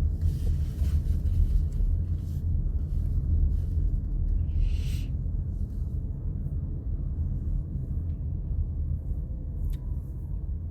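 Steady low rumble, with a short hiss about four and a half seconds in.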